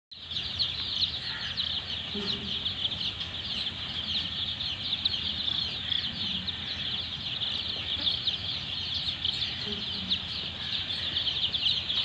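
A large flock of four-day-old chicks peeping together: a dense, continuous chorus of many short, high peeps, over a faint low steady hum.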